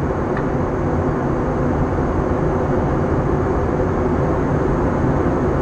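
Steady cabin drone inside an Airbus A321 airliner in flight: engine and airflow noise that stays even throughout.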